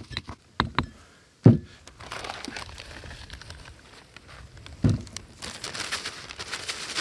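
Stone mortar and pestle clicking as dried piri piri chillies are crushed, with a heavy knock about a second and a half in. Then a plastic zip-lock bag crinkles as the crushed chillies are tipped into it, with another knock about five seconds in.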